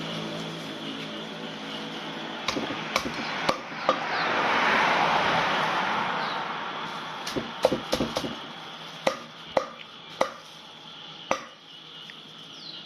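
Knife chopping on a cutting board: about a dozen sharp, irregularly spaced chops. A rush of noise swells and fades about four to six seconds in.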